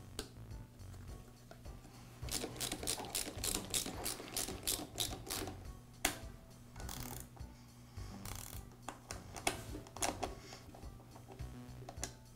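Small socket ratchet clicking in quick runs as it drives the screws that hold the sheet-metal side cover onto a Ridgid drain auger's motor. A fast string of clicks comes about two seconds in, then shorter bursts and single clicks.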